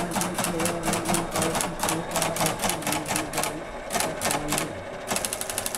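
Teletype keyboard perforator clattering as keys are typed, each keystroke punching 5-level code into paper tape. The punch strokes come evenly, about six a second, with a couple of short pauses, and turn into faster, even clicking near the end.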